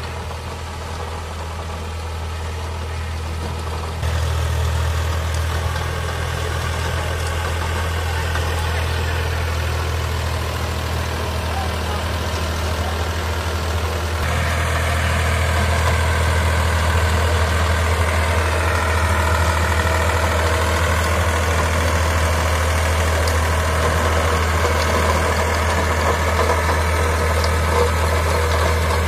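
Powertrac 445 DS Plus tractor's diesel engine running steadily under load while driving a rotary tiller through the soil. It gets louder about four seconds in and again about fourteen seconds in.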